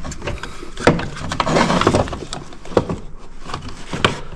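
Handling clatter: a few sharp knocks and clicks with rustling in between, as a loose choke control and its cable are held up against the Gator's body to find a mounting spot.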